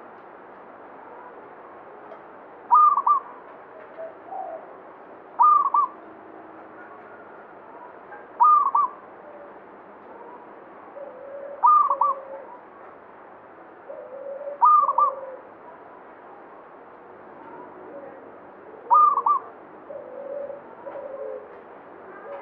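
Zebra dove (perkutut) singing: a short, high phrase of a few quick coo notes repeated about every three seconds, seven times, with fainter, lower notes in between.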